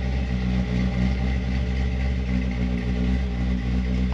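LS-swapped V8 engine of a Ford F-150 pickup running at a steady idle while the truck rolls slowly.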